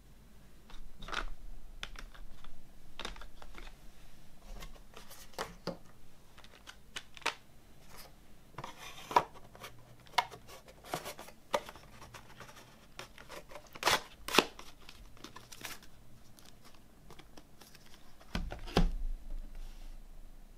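Plastic CD jewel cases clicking and clacking against each other as they are handled and slid into a box-set sleeve, with scattered sharp clicks and brief scrapes, the loudest two close together about two thirds of the way in. Near the end a low thud and scrape as the box is set down on the wooden table.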